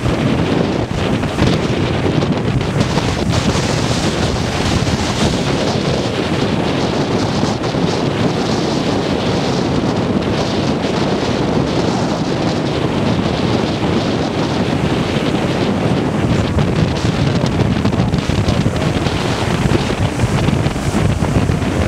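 Strong storm wind buffeting the microphone over heavy surf breaking on the beach and rocks. It is a steady, loud rush with a low rumble throughout.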